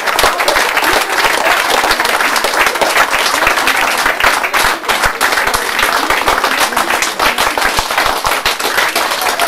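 A roomful of schoolchildren and adults applauding, many hands clapping together.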